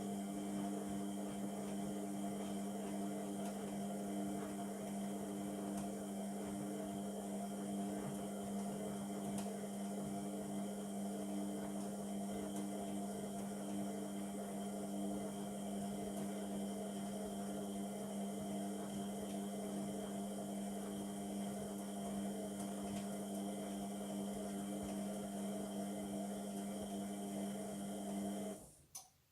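Indesit MTWC71252WUK washing machine giving a steady, even hum for about half a minute, then cutting off suddenly near the end.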